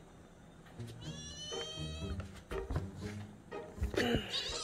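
A kitten meowing twice: one drawn-out meow about a second in and a second meow near the end, with a few soft knocks in between.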